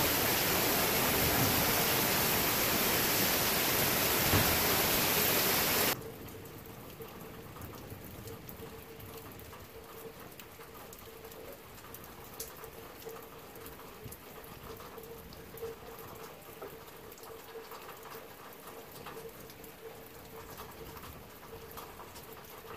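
Heavy rain pouring down, a loud steady hiss, that cuts off abruptly about six seconds in. After that comes a much quieter patter of scattered drips with a faint steady tone.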